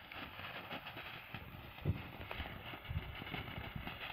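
Ground fountain firework spraying sparks: a steady hiss with rapid, irregular crackling pops, the loudest pop about two seconds in.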